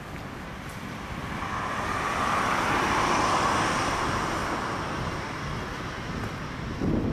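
A passing vehicle: a rushing noise that swells over a couple of seconds and fades away again, over a low wind rumble on the microphone.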